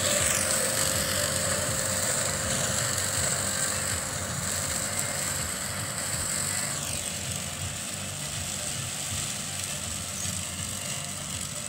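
Tractor engine running steadily under load while pulling a Happy Seeder that drills wheat into rice stubble. The sound fades gradually as the tractor moves away.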